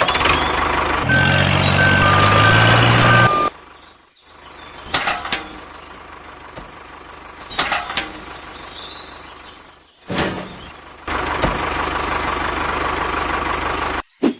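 Truck engine running with a reversing alarm beeping in a repeating two-pitch pattern; it cuts off sharply after about three and a half seconds. A quieter stretch with a few short knocks follows, then a steady engine-like noise returns for the last few seconds.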